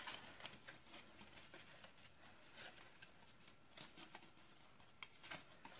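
Faint rustling and scattered light taps of stiff printed cardstock being folded and handled by hands, as the panels of a paper lantern are bent along their scored lines.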